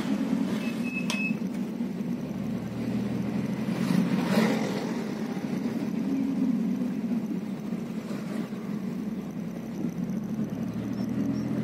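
Car engine and road noise heard from inside the moving car's cabin, a steady low hum. A short high beep sounds about a second in, and a brief louder swell about four seconds in.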